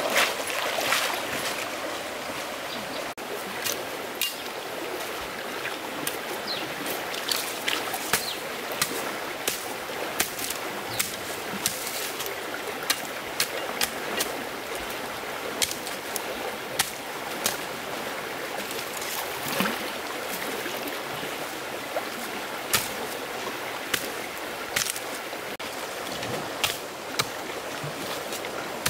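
Water running steadily, as in a stream, with many short sharp sounds over it throughout.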